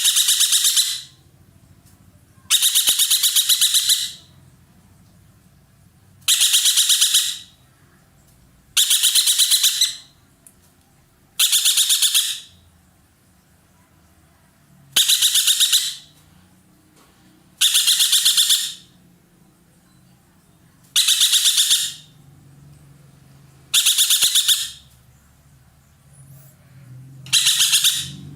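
Ekek keling calling loudly in repeated bursts: about ten bursts, each a second-long run of very rapid harsh notes, coming every two to four seconds.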